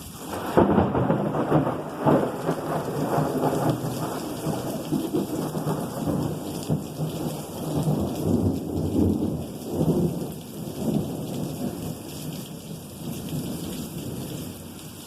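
A big crack of thunder about half a second in, then rolling thunder rumbling on in waves and slowly fading, over steady rain.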